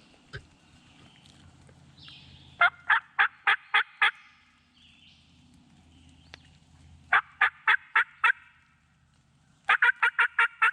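Turkey yelping from a hunter's turkey call: three loud runs of five to seven evenly spaced notes, about four a second, sent out to get a tom to gobble.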